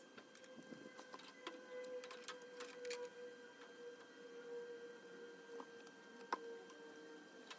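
Faint steady hum with a few scattered light clicks and ticks, the sharpest about six seconds in.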